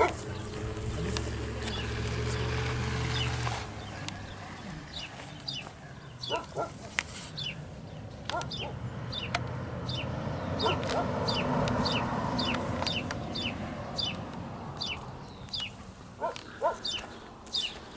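Backyard chickens clucking, with small birds chirping repeatedly throughout. A low steady hum runs under the first few seconds and stops about four seconds in.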